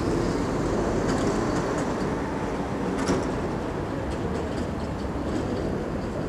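Steady city street noise, mostly a low traffic rumble, with a few faint ticks.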